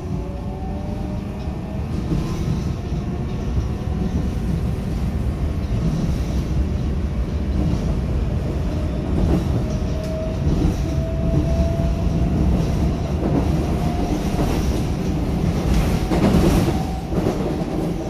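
Seoul Subway Line 4 train with Mitsubishi GTO inverter drive running, heard from inside the passenger car: a steady rumble of wheels on track, a faint rising motor whine from about ten seconds in, and louder rail clatter around sixteen seconds in.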